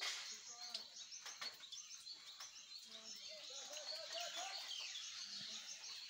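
Small birds chirping over and over, many high, quick calls overlapping, with a few soft knocks about a second in.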